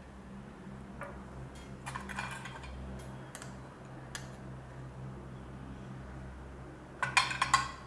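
Light scattered clicks and scrapes of a steel spoon and fingers working fish pieces in mustard and poppy paste in a glass dish, with a quick cluster of sharper clicks near the end. A steady low hum runs underneath.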